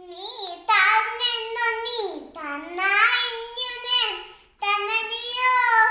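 A small child chanting a line of a Malayalam poem in a high, sing-song voice, in three phrases with short breaks, the pitch sliding up and down.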